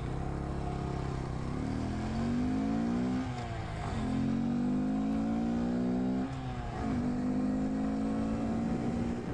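2018 Honda Grom's 125 cc single-cylinder engine pulling under throttle: the revs climb, drop sharply at an upshift a little over three seconds in, climb again, drop at a second upshift about six seconds in, then hold steady.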